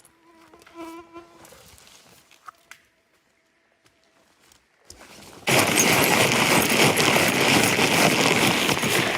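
A flying insect buzzes close to the microphone for about a second and a half, then fades to near silence. About five and a half seconds in, a loud, steady rushing noise cuts in abruptly and carries on.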